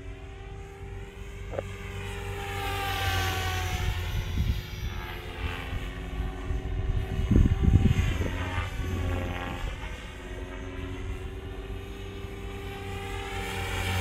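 Beam E5 electric radio-controlled helicopter in flight: a steady rotor hum with a pitched motor-and-gear whine that falls and rises again each time it passes by. Heavy wind rumble on the microphone peaks about halfway through.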